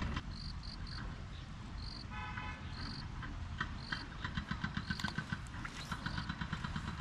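Distant road traffic rumbling, with a short car-horn toot about two seconds in. Many short high chirps and quick pulses sound over it.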